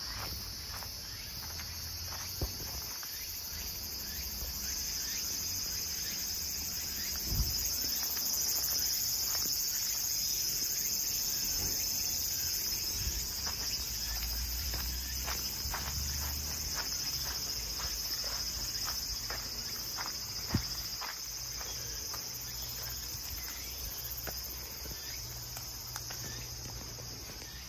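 Steady, high-pitched chorus of insects shrilling without a break, with a few soft knocks scattered through it.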